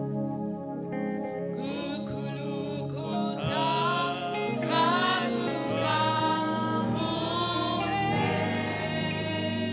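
Gospel worship music: instruments holding steady chords, with singing voices coming in about two seconds in and carrying on as a sung melody over the backing.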